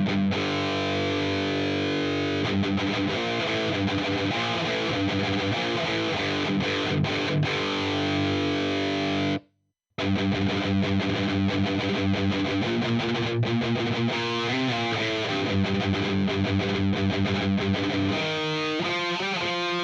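Distorted electric guitar played through the Audiority L12X amp-simulator plugin, a Marshall JCM-style high-gain tone with a Mesa 4x12 cabinet IR. It plays a riff, stops dead about halfway through, then starts again.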